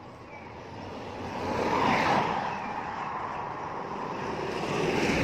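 Vehicles passing on the road, their noise swelling up and fading away, loudest about two seconds in and again near the end.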